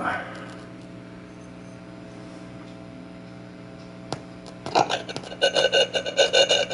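Steady electrical hum from a radio's speaker with a piezo disc element clipped to its input, and a click as the lead goes on. About four and a half seconds in, rapid uneven scratchy crackling starts as the piezo element is touched and moved, picked up and played through the radio.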